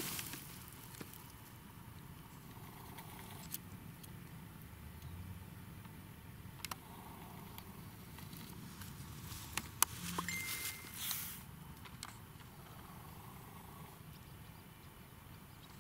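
Faint outdoor background on open heath: a steady low rumble with a few sharp clicks and rustles, and a brief steady whistle-like tone about ten seconds in.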